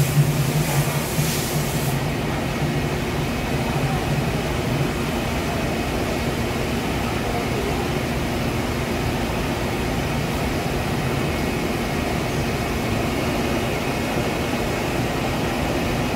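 Steady running hum and hiss of a powered-up Doosan TT1800SY CNC turning and milling center, with a low hum that is stronger in the first few seconds.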